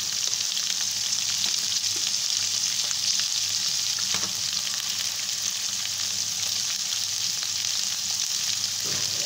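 Chicken and mixed vegetables (cabbage, capsicum, carrot, potato) frying in a pan: a steady sizzle with faint scattered crackles.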